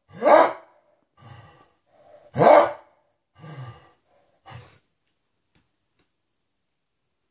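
A shaggy white dog giving short howling barks with its muzzle raised: two loud ones about two seconds apart, with softer, lower calls between and after. It falls silent about five seconds in.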